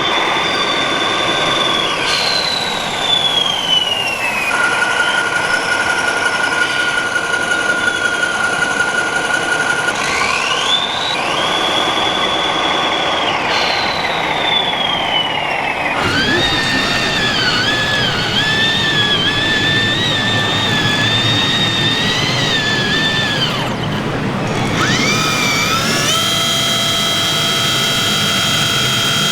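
High-pitched whine of the electric drive motors of radio-controlled model tractors, rising in pitch as they speed up, holding, then falling as they slow, several times over. A wavering whine takes over about halfway through, and a steady one near the end.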